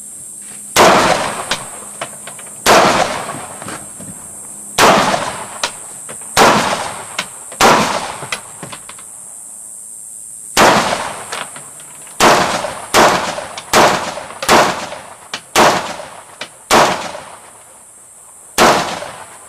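A rifle fired about thirteen times at uneven intervals in a timed course of fire, sometimes in quick succession, each shot loud with a short echo trailing off.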